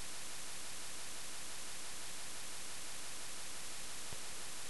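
Steady, even hiss of recording background noise, with no other sound.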